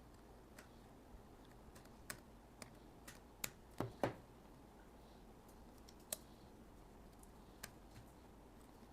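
Faint, scattered clicks and taps of a small screwdriver and screws being worked into the hotshoe on the bottom of a Godox TT600 speedlight, loudest in a quick cluster about four seconds in.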